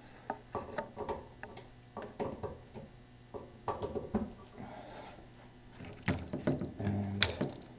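Scattered clicks and knocks of a lamp's electrical cord and plug being handled and pushed into a wall outlet.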